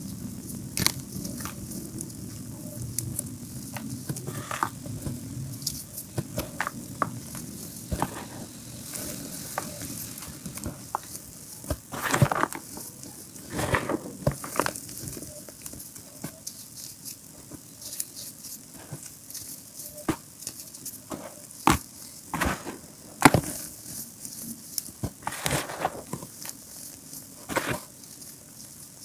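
Hands crumbling and crushing chunks of reformed gym chalk and stirring through loose chalk powder and crumbs: a continual run of small dry crackles, with louder crunches every few seconds.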